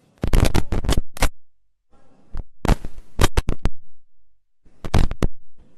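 Camera shutters firing in quick bursts, three runs of several sharp clicks each with short silent gaps between.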